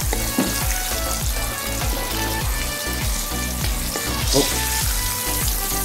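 Hot oil sizzling in a wok as crisp-fried salted mackerel is lifted out with a wire strainer, over background music with a steady beat.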